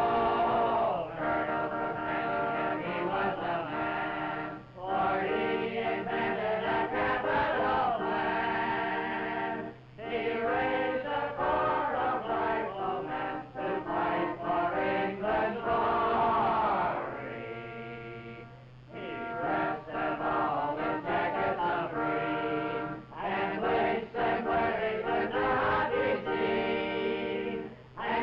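A choir singing an old riflemen's song, in sung phrases with short breaks between lines.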